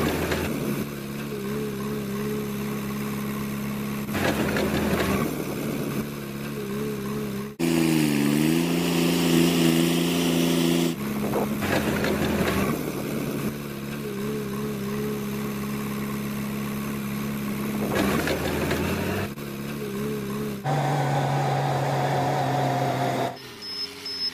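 Engine sound of heavy construction machinery, mostly a steady idle, with a dip and rise in pitch about eight seconds in and changes of engine note at several points. Short stretches of rougher noise come and go.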